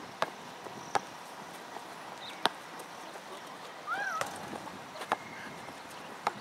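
A basketball bouncing on a concrete court: a few sharp knocks at uneven intervals. A short rising-and-falling cry comes about four seconds in.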